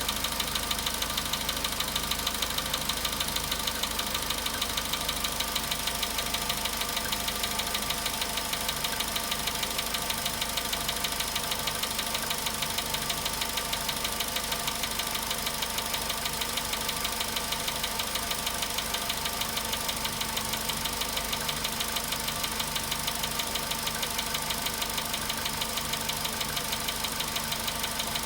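Volkswagen Polo Sedan's four-cylinder petrol engine idling steadily with a rapid, even knock running through it. It is the engine knock the owner calls very strange, at 93,000 km.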